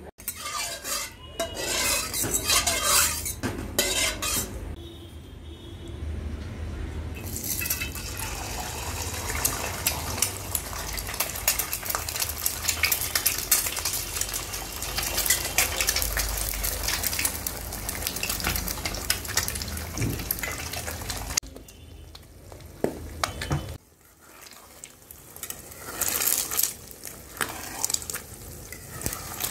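Eggs sizzling and spitting in hot oil in a kadai for a long stretch in the middle, with metal utensils clinking and scraping against the pan and a steel bowl at the start and again near the end.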